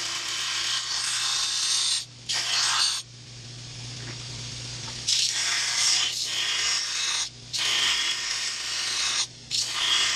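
Abrasive blast cabinet blasting forge scale off a forged steel knife blank: a loud hiss of air and grit that cuts off and starts again several times, over a steady low hum.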